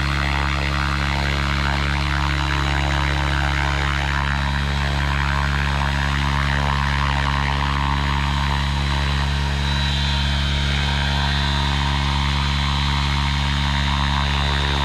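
T-REX 700 radio-controlled helicopter with its main and tail rotors spinning at speed close to the ground, giving a steady loud rotor drone with a rushing noise over it. A high thin whine joins about two-thirds of the way through.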